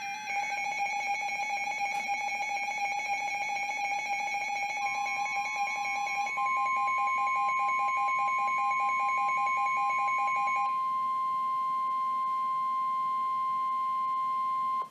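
An emergency alert signal: a fast-pulsing alarm beep, joined about five seconds in by a single steady warning alarm tone that grows loud. The beeping stops about eleven seconds in, and the steady tone holds, then cuts off suddenly at the end. This is the warning alarm tone that NOAA Weather Radio sounds before a new warning message.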